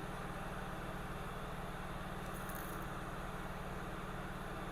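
Hot air rework station blowing steadily over a low electrical hum while it heats the U3550 chip off the MacBook Air logic board.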